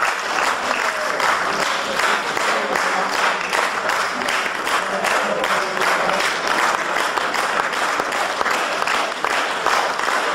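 Concert audience applauding steadily: dense, even clapping that holds at the same level throughout.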